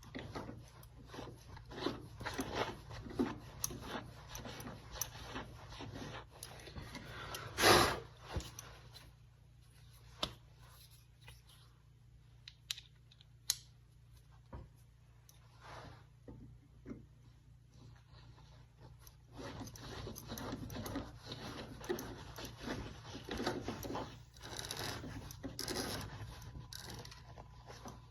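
Irregular scraping and rubbing, with one loud knock about eight seconds in and a quieter stretch in the middle, over a steady low hum.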